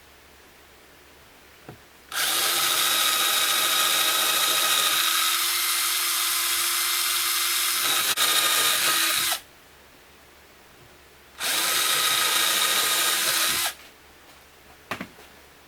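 Electric drill running in two bursts with a steady whine, a long one of about seven seconds and then a shorter one of about two seconds.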